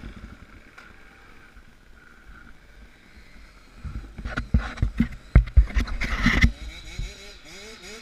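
Off-road motorcycle ride heard through an on-board camera: a low, steady rumble, then from about four seconds in a run of loud knocks and thumps lasting a couple of seconds, with an engine note rising in short repeated swells near the end.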